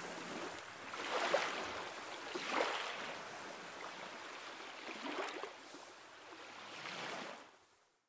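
Small sea waves washing and splashing around shoreline rocks, one surge every second or two. The sound fades out near the end.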